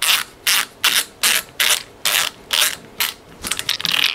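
Ratcheting screwdriver driving a screw into the sheet-metal chassis of a car radio. The ratchet rasps on each back-stroke at about two strokes a second, with a quicker run of clicks near the end.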